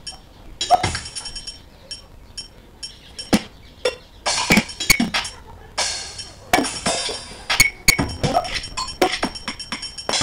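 Chopped, stop-start electronic sound collage of irregular clinks, sharp clicks and short bursts, with brief quieter gaps between them.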